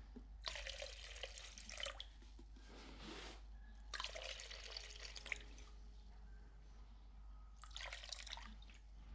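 Thinner being poured into a bucket of epoxy primer in about four short trickles and drips.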